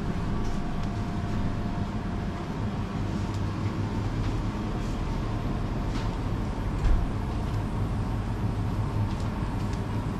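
Steady low hum of a supermarket's refrigerated display cases and ventilation, with a few faint clicks and one thump about seven seconds in.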